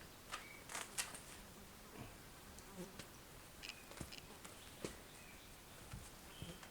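Faint outdoor ambience: scattered soft clicks and a few brief high chirps over a low steady hiss.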